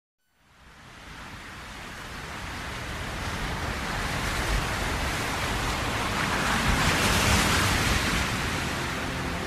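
A soft rushing wash of noise fades in from silence and swells steadily, loudest a little before the end.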